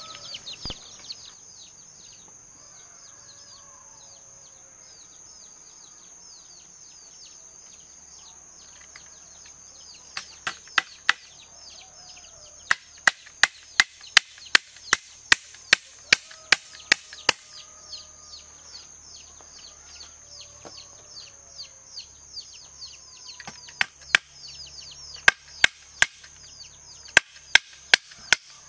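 Repeated sharp chopping strikes, about two a second, in runs with pauses between them. Behind them are a steady high-pitched drone and birds chirping.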